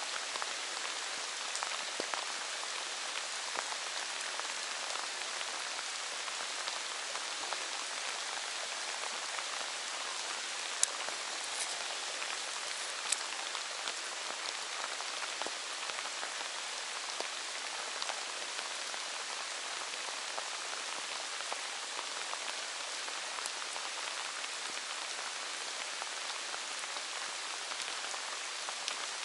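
Steady rain falling, an even hiss with scattered sharper drop hits.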